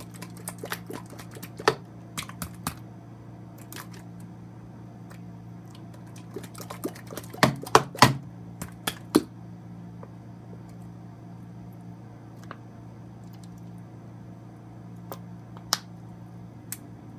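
Slime being worked and pried out of its plastic container: scattered small clicks and crackles, with a cluster of louder pops about halfway through, over a steady low hum.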